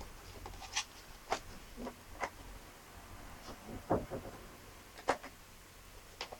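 Handling noise: a scattered, irregular series of short clicks and crinkles from a clear plastic packaging bag and a plastic headset being handled.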